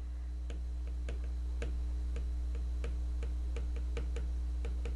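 Stylus tip tapping and clicking on a tablet's glass screen during handwriting: short, sharp, irregular clicks, a few a second, over a steady low hum.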